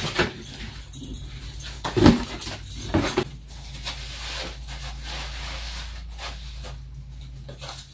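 A dog whining twice, about two and three seconds in, over the rustle and scrape of a foam-lined box and cardboard packaging being handled; a steady low hum runs underneath.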